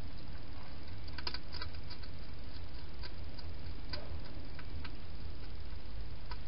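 Hedgehog eating from a dish in a plastic feeding box: scattered sharp clicks and crunches, a cluster about a second in, more around four seconds and one near the end, over a steady low hum.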